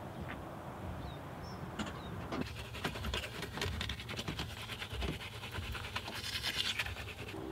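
A toothbrush scrubbing teeth in quick, scratchy back-and-forth strokes, starting about two seconds in and loudest near the end.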